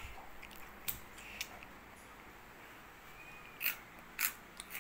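A few sharp, separate clicks and crunches, with the two loudest coming close together near the end.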